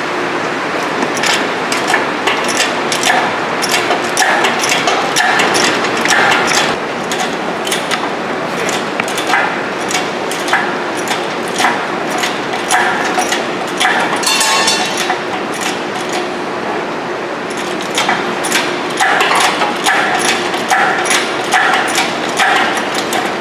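Irregular metal clanks and knocks over a steady shop background hiss, with a ringing metal clang about fourteen seconds in, as an engine is jacked out of a car's engine bay on a chained engine hoist.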